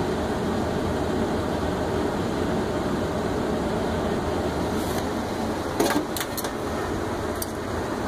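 HVAC air handler's blower running steadily, with a few short clicks about six seconds in.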